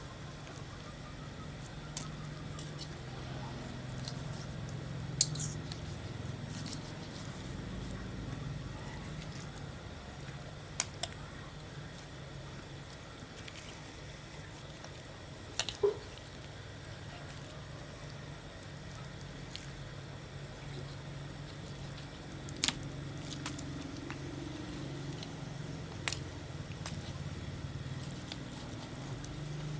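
Knife cutting raw chicken meat, soft squishing, with a few sharp knocks of the blade on the cutting board, over a steady low hum.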